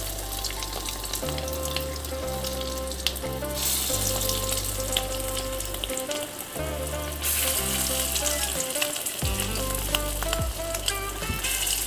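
Dal bora batter frying in a kadai of hot oil: a steady crackling sizzle, with more spoonfuls of batter going into the oil as it goes.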